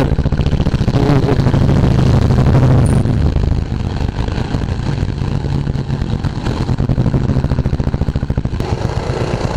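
Royal Enfield Classic 350's single-cylinder engine running steadily under way, a rapid even thump.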